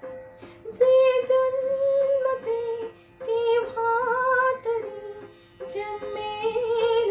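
A woman singing a Marathi song in three phrases with short breaths between them, over a steady instrumental backing track.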